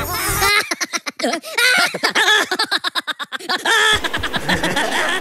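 A person laughing in a quick run of short ha-ha pulses, from about half a second in until nearly four seconds in.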